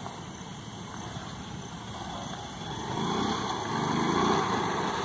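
Honda Shine 125 cc single-cylinder motorcycle engine running with its stock air filter fitted as the bike rides up, getting louder over the last two seconds.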